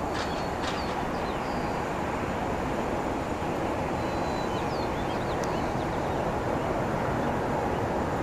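Jet engine noise from a Boeing 737-800's CFM56 turbofans on final approach: a steady rumble that grows slowly louder as the airliner comes closer.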